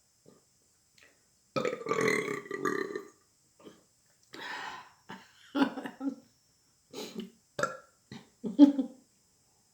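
A woman burping on purpose: one long, loud burp about a second and a half in, then a run of shorter, broken burps.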